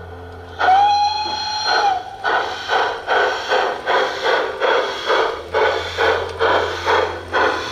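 LGB 28002 G-scale 0-8-0 Rügen model steam locomotive's sound: a whistle blast of just over a second about half a second in, then steady steam chuffs, just under two a second, as the engine runs.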